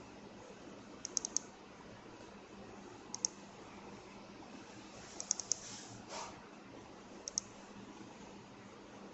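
Small sharp clicks in short groups of two to four, about every two seconds, over a faint steady hiss and low hum.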